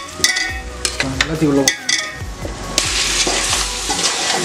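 Boiled chicken pieces tipped from a cooker pan into a hot aluminium pot of fried masala, with a few metal clanks of pan and ladle against the pot. From about three seconds in, a steady sizzle as the pieces are stirred into the masala.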